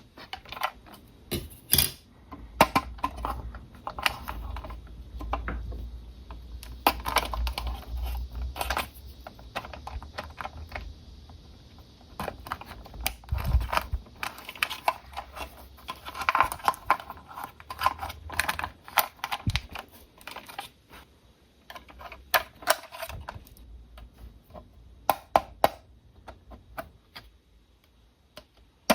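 Irregular clicks, taps and rustles of a toy RC car and its plastic packaging being handled and unboxed.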